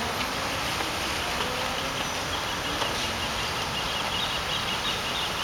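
Steady rushing hiss of water-jet fountains spraying over a lake, with birds calling faintly. A rapid high twittering joins from about two seconds in.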